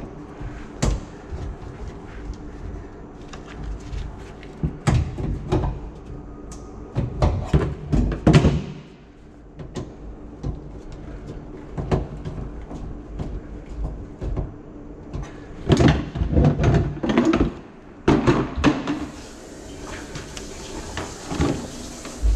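Repeated knocks and clatter as a drum drain-cleaning machine and its cable are handled beside a sink cabinet, over a steady low hum.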